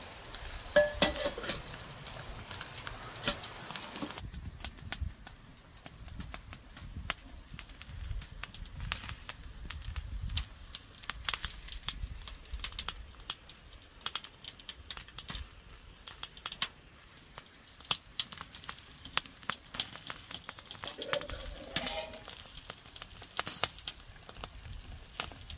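Camp cooking: irregular light taps and clinks of a utensil against a pan, with a few sharper knocks about a second in.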